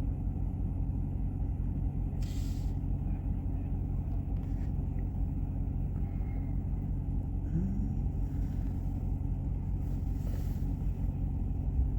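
Steady low rumble of a car on the move, engine and road noise, with a few brief hisses.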